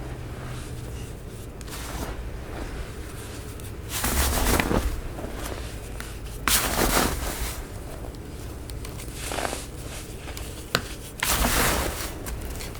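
Compacted baking soda being crushed, giving three loud crunches with fainter crackles and a sharp click between them.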